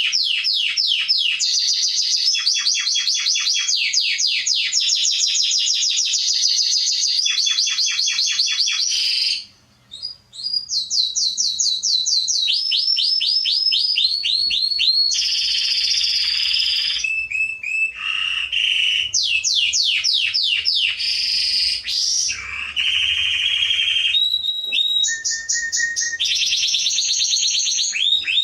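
Domestic canary singing a long, loud song of rapid trills and rolls, phrase after phrase at shifting pitches. There is a brief break about ten seconds in.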